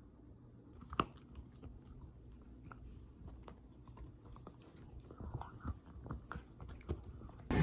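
Quiet chewing and biting, with scattered small clicks and crunches; the sharpest click comes about a second in.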